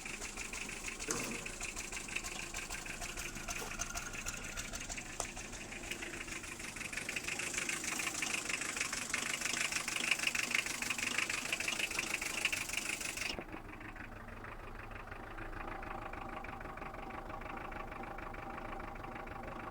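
Toyota 3C-TE 2.2 litre turbodiesel engine idling roughly and unevenly, a lumpy idle that the owner puts down to low compression in cylinder No. 4. A steady hiss over the engine cuts off suddenly about thirteen seconds in, leaving the engine quieter.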